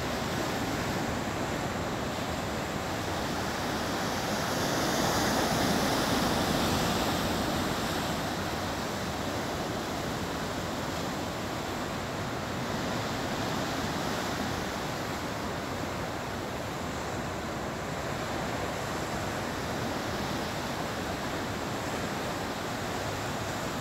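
Steady wash of ocean surf mixed with wind on the microphone, swelling a little about five seconds in.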